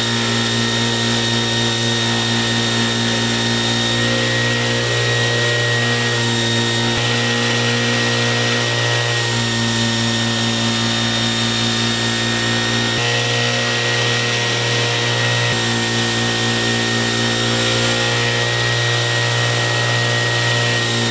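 An electric power tool running steadily, a constant low hum with hiss over it, its tone shifting slightly every few seconds.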